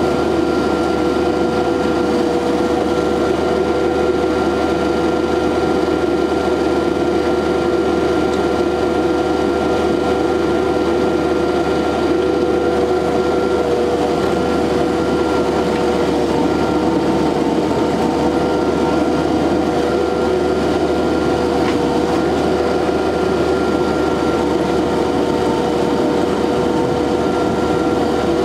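SCL 1000 mini loader's engine running at a steady speed, with a constant engine whine and no change in revs.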